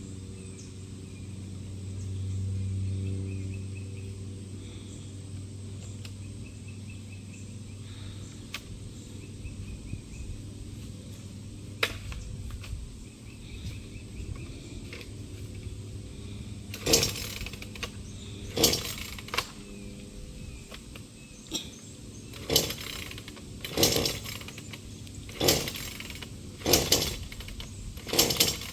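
Gas chainsaw engine running low and unsteadily, swelling briefly a couple of seconds in, while it struggles to keep running. In the second half comes a series of short, sharp bursts about every second and a half as it is pulled and revved again.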